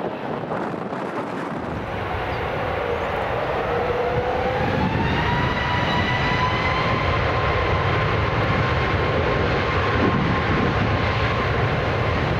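Boeing 737 MAX 8's CFM LEAP-1B jet engines spooling up for takeoff. A whine rises in pitch from about four seconds in, then holds steady over a slowly growing jet roar.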